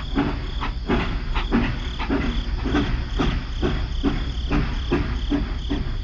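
Battery-powered toy steam locomotive running on plastic track: a steady motor whir under a regular clatter of about four clicks a second.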